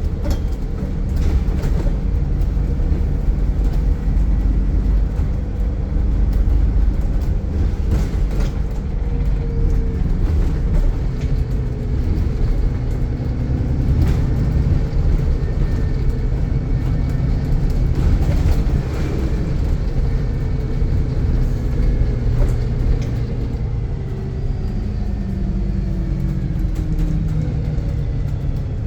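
Turbocharged diesel bus engine working hard under acceleration, a heavy continuous drone with a faint turbo whistle above it. The pitch rises and falls as it changes speed and gear.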